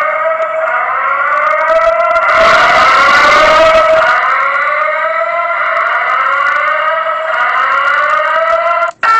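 Fire alarm sounder playing a repeating siren-style tone: a buzzy pitched note that glides upward about every second and a quarter. A hissing noise washes over it for a couple of seconds. Near the end the sweep cuts off, and after a brief gap a steady horn-like tone begins.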